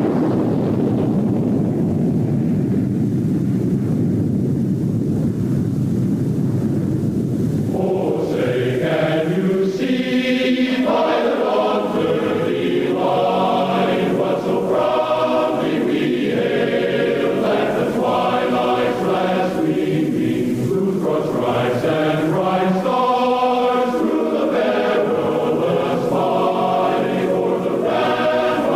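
A steady low rumble for about the first eight seconds, then a choir singing an anthem.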